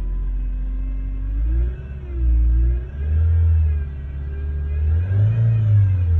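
Ford Focus engine idling, then revved three times; its running sound, including a steady tone, rises in pitch and grows louder with each blip of the throttle. The owner hears a noise from the engine that increases as he gives it gas, cause unknown.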